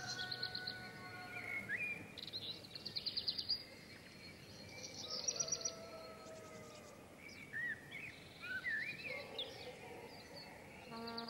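Several songbirds singing in the open: repeated rapid high trills, the loudest about two to three and a half seconds in and again around five seconds, with short whistled notes in between, over a faint steady outdoor hiss.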